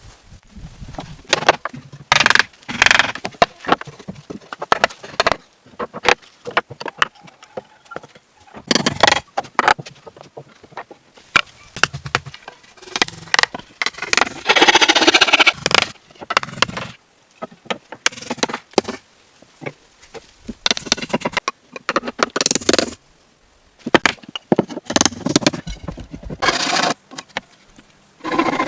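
Hand work on wood: irregular scraping and knocking, some strokes short and some drawn out over a second or two, with short pauses between.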